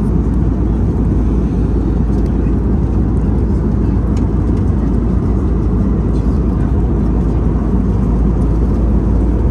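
Steady low rumble of an Airbus A321neo's cabin in flight, engine and airflow noise, with a few faint light clicks.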